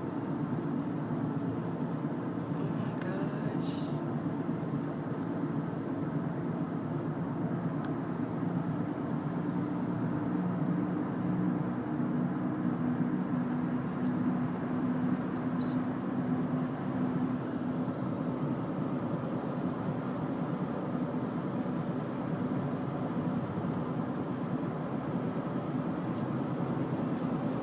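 Steady low hum of a car's engine and road noise, with a couple of faint clicks.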